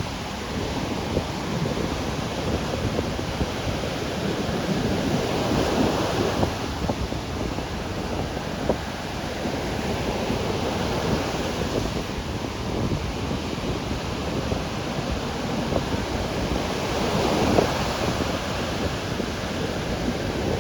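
Ocean surf breaking on a beach: a continuous wash of water that swells as waves break, twice rising louder, about a third of the way in and again near the end.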